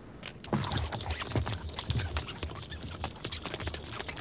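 A fire engine's hose reel being run out: a quick, irregular clatter of clicks and knocks, several a second, with high ticks over low thumps as the hose is pulled off.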